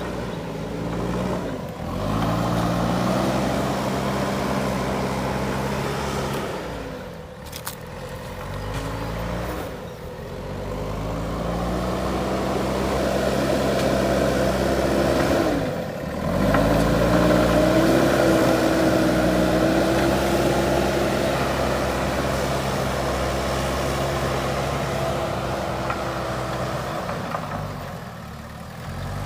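JCB backhoe loader's diesel engine working under load, revving up several times and easing off between revs. There is one brief sharp click about seven and a half seconds in.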